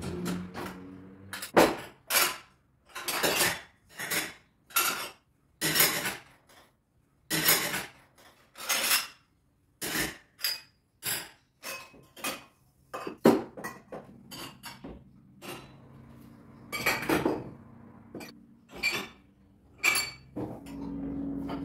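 Dishes and cutlery clinking and clattering as a dishwasher is unloaded, with a string of separate sharp knocks of crockery and metal about one a second.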